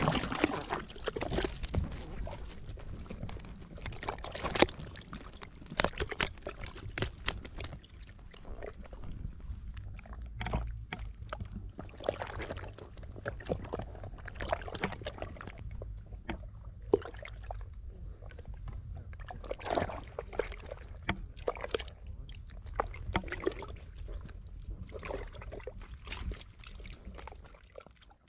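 Live catfish flopping and twisting on wet, cracked mud, making irregular wet slaps and squelches.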